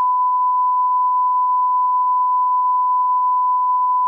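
Television 1 kHz line-up test tone that accompanies colour bars at sign-on: one steady pure pitch held without a break.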